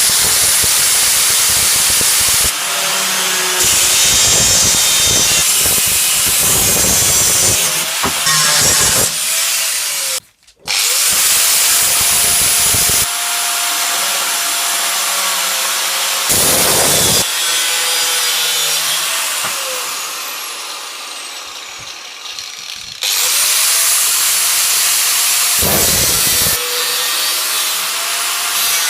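A power tool works the steel of an old saw blade. The sound is a loud, continuous rasping noise with a motor tone that rises and falls under load, broken into short clips by several abrupt cuts.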